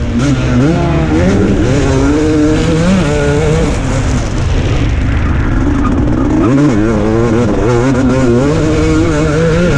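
KTM 250 SX two-stroke motocross engine ridden hard, heard from on the bike: the revs climb and fall over and over as the throttle is opened and chopped, with short sharp drops in pitch about half a second, four seconds and six and a half seconds in.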